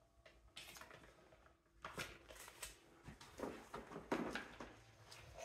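Hands rummaging through packaging and loose parts: irregular rustling with light knocks and clatter, sparse at first and busier from about two seconds in.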